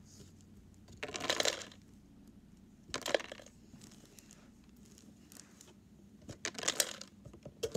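Loose plastic Lego pieces and their packaging being handled: three short bursts of rattling and rustling, about a second in, about three seconds in and again near the end.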